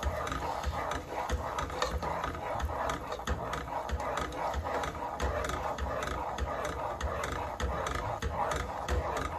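Slotted plastic spatula scraping and knocking against a nonstick saucepan as a thick, creamy sauce is stirred briskly, several strokes a second. The stirring stops at the very end.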